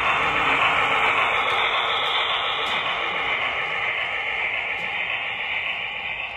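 An HO scale USRA 0-6-0 switcher and its passenger cars rolling close past, with a steady hissing rumble of wheels on rails. The sound fades as the train moves away.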